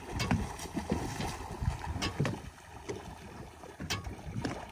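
Small boat under way, water slapping and splashing irregularly against the hull, with wind buffeting the microphone.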